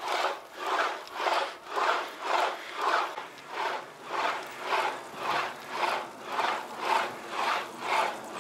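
A rider's hard, rasping breaths in a steady rhythm, about two a second, close to the microphone: heavy breathing from pedalling an ElliptiGO hard.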